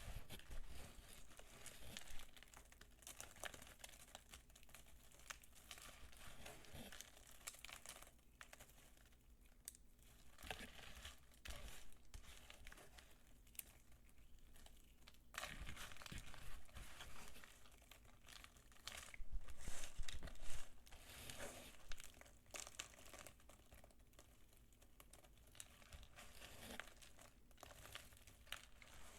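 Dry soap peelings being crumbled and handled by the fingers: irregular crisp crackling and crinkling, louder for a few seconds a little past the middle.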